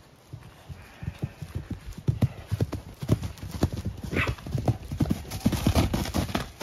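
Hoofbeats of two horses running in across grass, many quick knocks that grow louder as the horses come close and pass by near the end.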